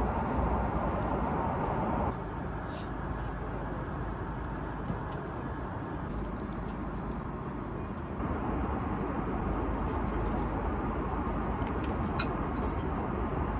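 Airliner cabin noise: a steady drone of engine and air rush, with a few light clicks. The level steps down slightly about two seconds in and back up about eight seconds in.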